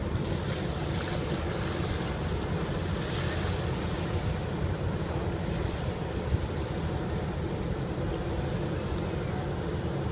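Steady low rumble of wind on the microphone, with small waves lapping at the river shore.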